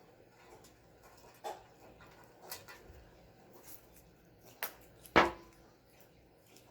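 A dog gives a single short bark about five seconds in, among scattered light clicks and taps.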